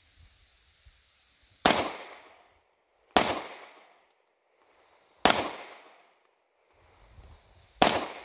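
Four 9mm pistol shots fired one at a time, about two seconds apart, each followed by a short echo.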